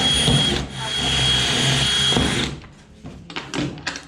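Power drill running steadily in two runs, a short one and then a longer one of about two seconds, with a constant high motor whine, stopping about two and a half seconds in; a few light knocks follow.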